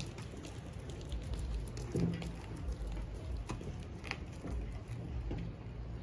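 Outdoor street ambience: a low steady rumble with a few faint scattered ticks.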